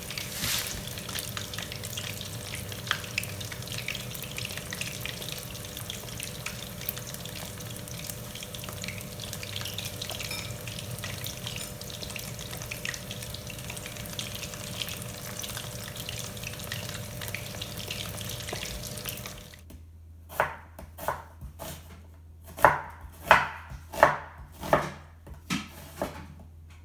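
Food frying in hot oil, a steady sizzle with small crackles. About two-thirds of the way in it gives way to a knife chopping on a cutting board: a dozen or so sharp strikes, about two a second.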